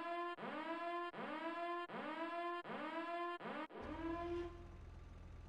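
Daemond electronic siren sounding a quick repeating whoop, each tone sliding up and then holding, about one whoop every three-quarters of a second. Just before the end it switches to a single longer whoop, and a steady low hum starts underneath.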